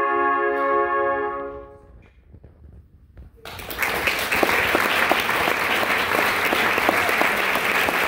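A trumpet choir holds a final chord that dies away in the hall's reverberation by about two seconds in. After a brief hush, the audience bursts into applause.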